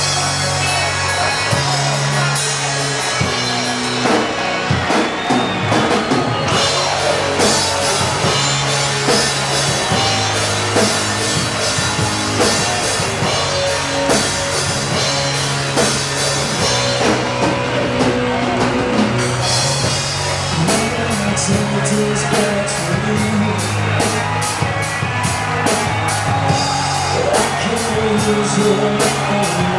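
Live rock band playing loudly: electric guitar, bass and drum kit, with cymbal strokes coming thick and even in the last third.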